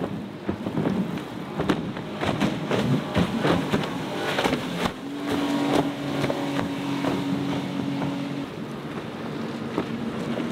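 Outboard-powered boats running fast through choppy water: engine noise with spray and rushing water. The first half has many sharp slaps and splashes as hulls hit the waves, and from about halfway a steady outboard engine drone holds for about three seconds before fading.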